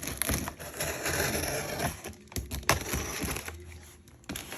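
Cardboard shipping box being worked open: irregular crunching, scraping and cracking of cardboard, with a few sharp clicks.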